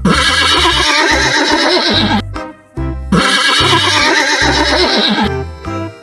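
Horse whinnying twice, each call about two seconds long with a wavering, falling pitch, over children's background music with a steady beat.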